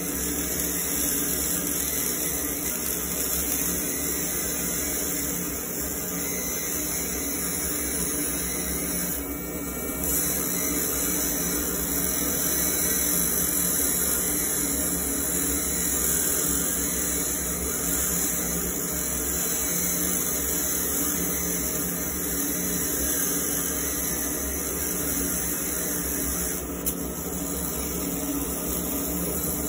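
Steady whirring hiss of a laser engraving machine and its fume extractor blower running while the laser etches a steel pistol slide, with a constant low hum underneath.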